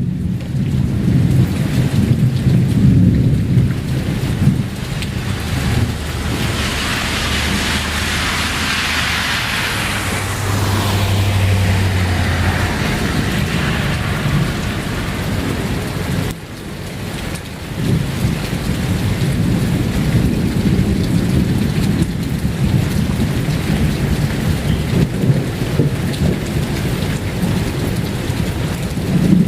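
Thunder rumbling and rolling through a thunderstorm, with rain falling. A sharper, hissing crash of thunder comes about six seconds in and dies away by eleven. A brief lull follows a little past halfway, then the low rumbling builds again.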